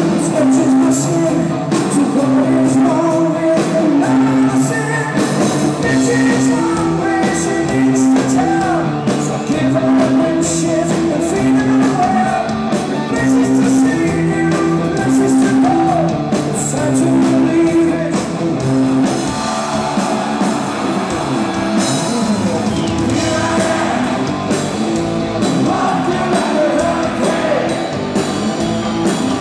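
Live hard rock band playing: a singer singing over distorted electric guitars, bass and drums.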